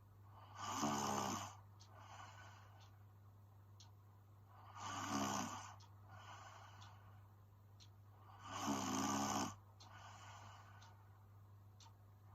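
A sleeping woman snoring: three loud snores about every four seconds, with a softer breath between each.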